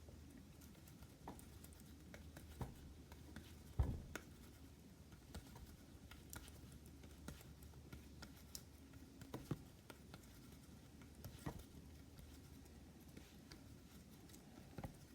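Faint, soft tapping and rubbing of hands rolling slime into a ball, with scattered small clicks and one louder knock about four seconds in.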